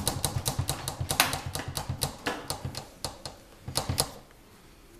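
A rapid run of sharp mechanical clicks, about six a second, over a low hum that fades in the first second; the clicks then thin out to scattered ones and stop about four seconds in.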